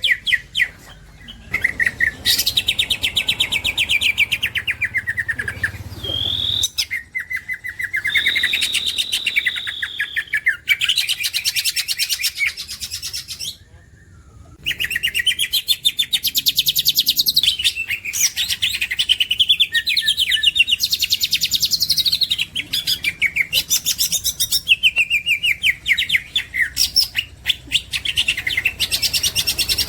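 Green leafbird (cucak ijo) singing a long, fast song of rapid trilled notes and whistled slurs, some falling and some held high. It breaks off briefly near the start and for about a second midway.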